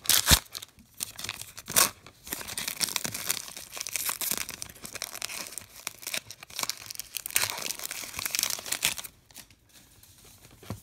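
Trading-card pack wrapper being torn open and crinkled as the stack of cards is pulled out, with two sharp rips in the first two seconds and quieter for the last second or so.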